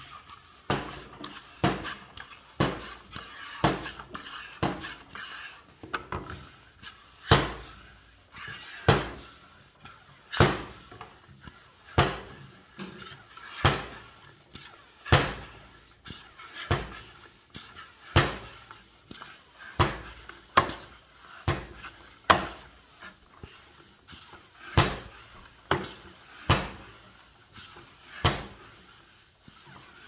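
Floor pump being worked in a long run of strokes, each a short whoosh of air, inflating a 16-inch bicycle tyre. The strokes come about once a second at first and slow to about one every second and a half.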